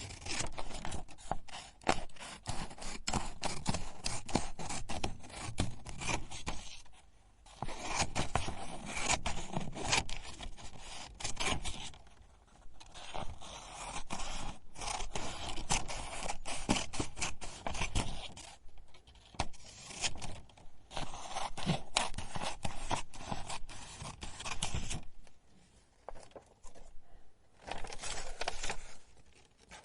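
Paper being cut: runs of crisp scraping and crackling cuts several seconds long, broken by short pauses, with a longer pause near the end.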